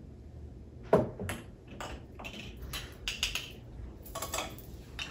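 Spoon and cup clinking and knocking as syrup is spooned into a latte: one sharp clink about a second in, then several lighter clinks and taps.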